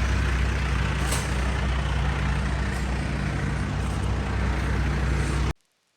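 An engine running steadily with a low hum; the sound cuts off suddenly about five and a half seconds in.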